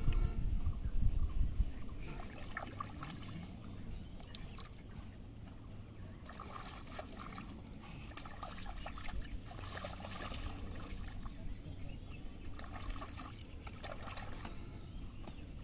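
Shallow river water splashing and trickling in small irregular bursts as hands grope in the water around and inside a bamboo polo fish trap, with a low rumble during the first couple of seconds.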